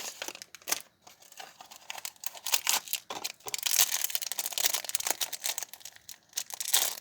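A small candy wrapper being crinkled and torn open by hand, with irregular crackling throughout.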